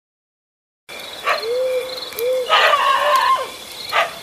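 Night ambience: crickets or other insects chirping in a steady pulsing rhythm, with low short hooting calls and three louder, sharp animal calls about a second and a half apart.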